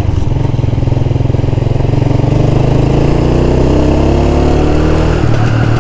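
A 125 cc motorcycle engine under way, heard from the rider's seat. Its pitch climbs steadily for a few seconds as the bike accelerates, then drops sharply near the end.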